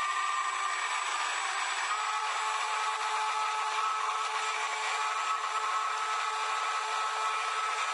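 Stick blender running steadily in thick hot-process soap batter in a large stainless steel pot: a constant motor whine over a churning hiss, its pitch stepping slightly higher about two seconds in.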